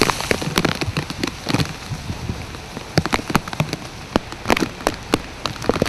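Heavy rain pelting down: a continuous loud hiss broken by many irregular sharp hits of drops striking nearby.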